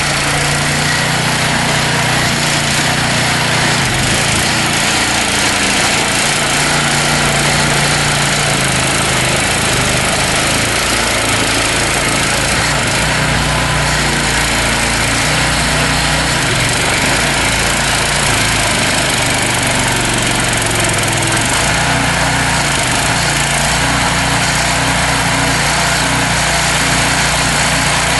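Small engine of a homemade hydraulic-drive tractor running steadily, without letting up, while the tractor is driven along.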